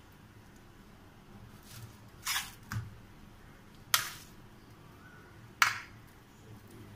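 Clinks and taps on stainless-steel plates as spiced potato mash is shaped into vada patties by hand: four sharp clinks, the two loudest about four and five and a half seconds in, each with a brief ring.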